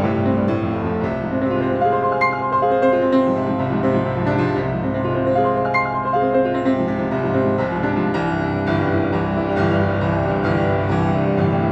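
Fazioli grand piano played solo: a continuous classical passage with many notes struck in quick succession at a steady, fairly loud level.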